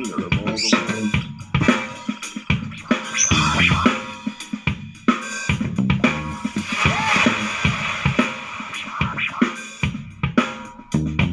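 Music with a strong drum-kit beat of kick and snare, played through the Awei Y371 portable Bluetooth speaker during a sound test.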